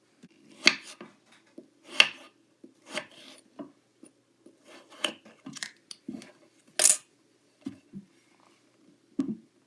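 Kinetic sand being cut: a series of short crisp crunching cuts, roughly one a second, the loudest about seven seconds in.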